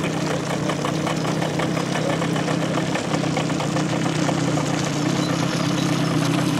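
Boat outboard motor running steadily as the boat moves off across the lake.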